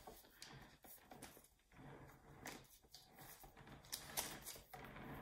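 Quiet room with faint paper rustling and a few soft clicks as a sculpture is turned by hand on a rotating stand, the sharpest click about four seconds in.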